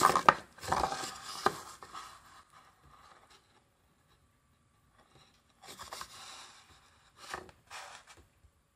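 Molded-pulp cardboard tray scraping and rustling on a wooden floor as a cat, excited by the silvervine stick inside it, rubs and pushes its face into it. The sound is loudest over the first two seconds, with a few sharp clicks. Two shorter bursts of scraping come near the end.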